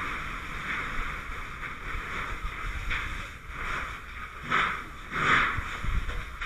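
Water hissing from a fire hose nozzle, steady, with two louder surges a little past halfway.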